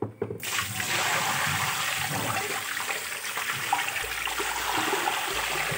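Water gushing and splashing into a tiled kitchen sink basin, rinsing it after scrubbing. The flow starts suddenly just after the beginning and then runs steadily.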